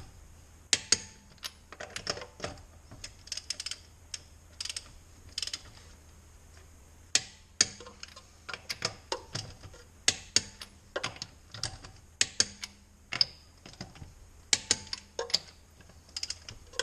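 Hand ratchet clicking in short, irregular runs of sharp ticks, with pauses between the runs.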